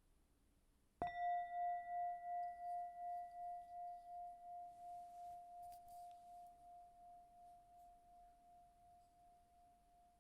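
Meditation bell struck once about a second in, ringing with a slightly pulsing tone that slowly fades, marking the start of a guided meditation.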